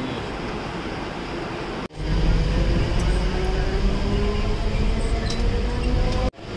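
Mumbai suburban local electric train: first steady platform noise as a train pulls in, then, after an abrupt cut about two seconds in, the loud rumble inside a crowded moving carriage with a whine slowly rising in pitch as the train gathers speed. The sound cuts off abruptly near the end.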